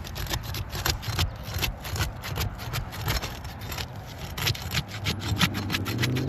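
A tool is worked under an asphalt shingle to break its sealant bond: irregular scraping and crackling strokes as the shingle catches and tears. A low engine hum comes in near the end.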